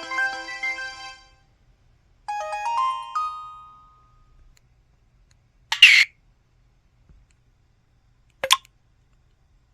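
Motorola ROKR ZN50 mobile phone system sounds played one after another: two short melodic electronic alert jingles of about a second and a half each, then a brief noisy burst about six seconds in and a short sharp blip near the end.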